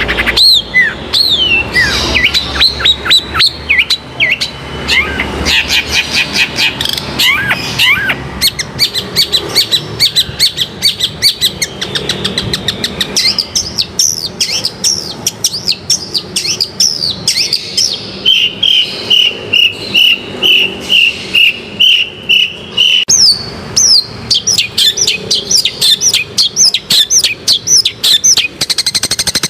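Long-tailed shrike (cendet) in full song: a fast, varied run of chirps and sweeping whistles, with a string of about ten even, repeated notes about two-thirds of the way through.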